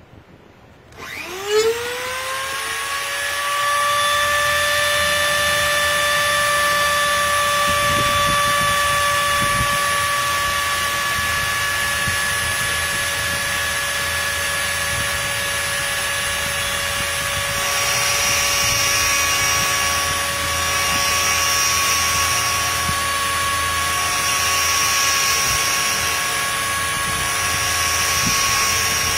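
A handheld rotary tool clamped in a vice switches on about a second in and spins up to a steady high whine. A little past halfway another motor tone joins. A grinding hiss then swells and fades about every two and a half seconds as the CNC spindle's grinding bit passes over the tip of the spinning V-bit to regrind it.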